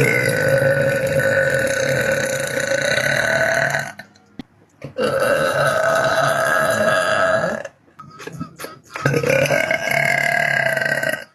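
A young woman's long, drawn-out burps: three in a row, the first about four seconds long and the next two about two and a half seconds each, with short pauses between.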